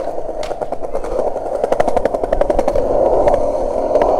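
Skateboard wheels rolling on concrete: a steady rumble that grows louder, with a stream of small clicks as the wheels pass over seams and grit.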